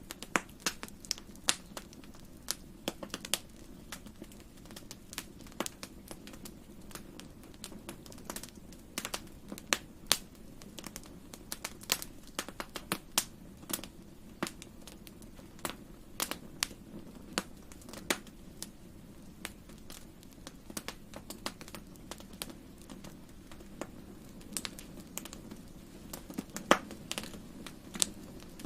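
Wood fire crackling in a fireplace: irregular sharp pops and snaps, sometimes several close together, over a low steady rumble.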